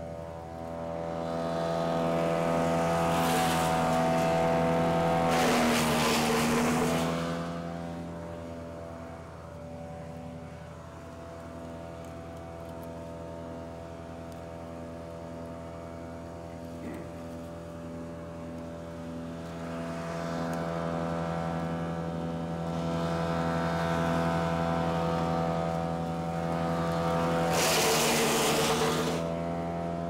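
GX Commercial Big Bear BBC72 wood chipper with its V-twin engine running at a steady speed while it chips hard oak limbs. There is a loud bout of chipping from about two to seven seconds in, lighter chewing from about twenty seconds in, and another loud bout near the end.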